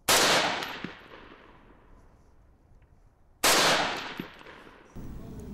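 Two single rifle shots about three seconds apart, each trailing off in a long fading echo.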